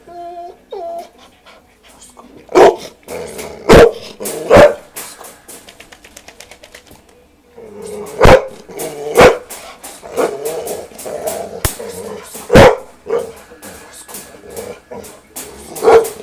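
Dog barking, about seven loud, sharp barks in irregular groups of two or three, with pauses of a few seconds between them.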